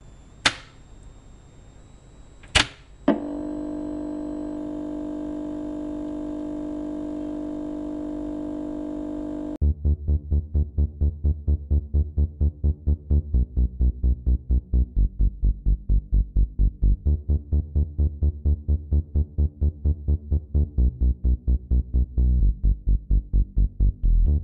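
Electronic background music: a few sharp hits at the start, a held chord, then from about ten seconds in a fast pulsing beat at about four pulses a second.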